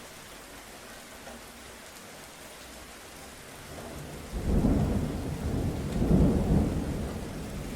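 Steady rainfall, then about four and a half seconds in a loud rolling rumble of thunder breaks in, swells again a second and a half later and slowly dies away under the rain.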